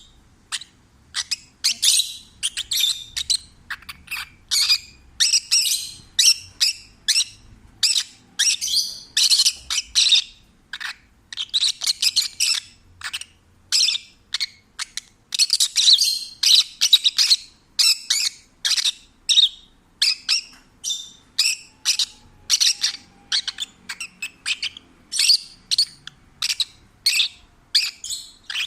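Peach-faced lovebird singing and chattering: a continuous stream of short, rapid, high-pitched chirps and squawks.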